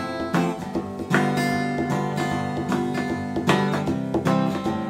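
Background music: acoustic guitar playing chords.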